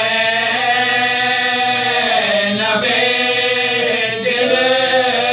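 Several men's voices chanting an Urdu marsiya (elegy) together without instruments, drawing out long held notes.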